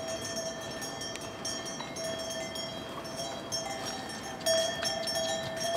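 Neck bells on pack yaks ringing as the loaded animals walk past, a steady metallic ringing that is struck afresh a few times with each stride.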